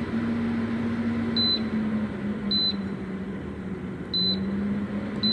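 Dreo 1500 W space heater's control panel giving short, high single beeps about four times, a second or so apart, as its fan speed buttons are pressed. Under the beeps the heater's fan hums steadily, its pitch shifting slightly after some of the presses as the fan speed changes.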